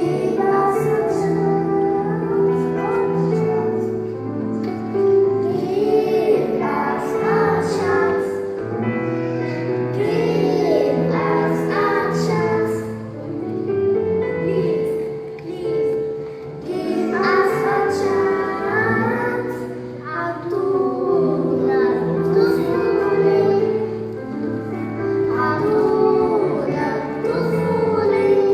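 Children singing a song together over instrumental accompaniment of steady held chords.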